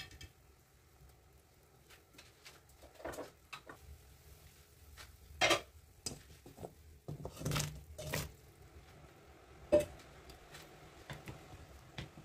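Irregular clinks and knocks of a cooking pot and utensils, loudest about five and a half seconds in and again between about seven and ten seconds, over a faint steady low bubbling of broth at a rolling boil.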